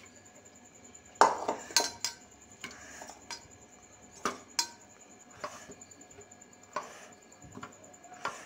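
Stainless steel bowls clinking and knocking against each other as grated potato is tipped and scraped into a bowl of spiced flour: a handful of sharp metallic knocks, the loudest about a second in.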